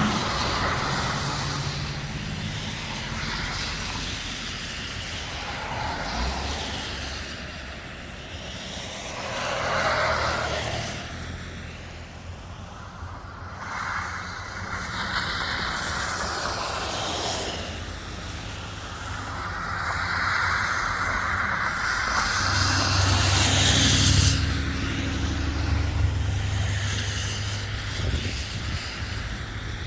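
Road vehicles passing, their noise swelling and fading several times, with a deeper engine hum in the loudest pass near the end.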